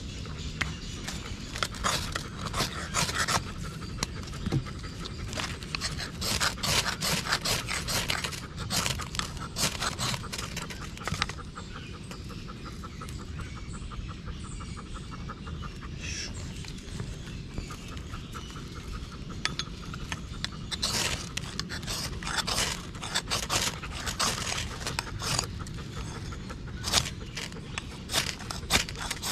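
Knife scraping in clusters of quick repeated strokes against dry coconut husk tinder while lighting a fire, over the steady panting of a German shepherd.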